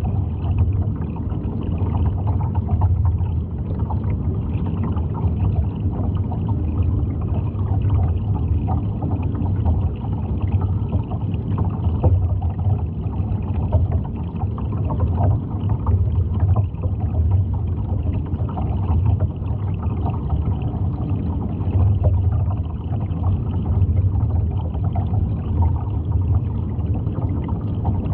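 Underwater ambient noise: a steady low rumble with water hiss and faint scattered crackling throughout.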